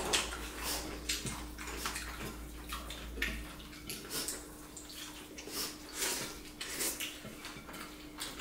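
Close-up eating sounds: irregular wet smacks and clicks of mouths chewing and of fingers mixing rice and fermented greens on plates, over a faint steady hum.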